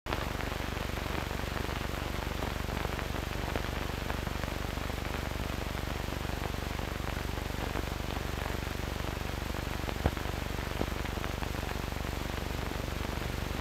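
Steady hiss and low hum of an old film soundtrack, with scattered faint crackles and a sharper pop about ten seconds in.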